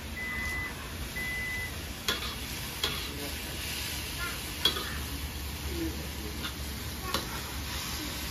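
Chopped leafy greens sizzling as they are stir-fried in a stainless-steel wok, with a metal spatula scraping and clacking sharply against the pan a few times.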